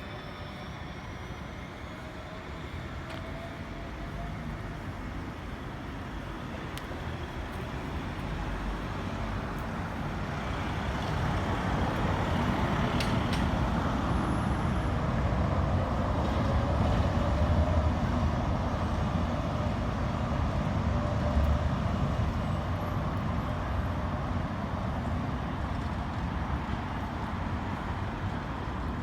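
City street traffic. It grows steadily louder over the first dozen seconds as a heavy road vehicle's engine comes close, stays loud for about ten seconds, then eases off slightly near the end.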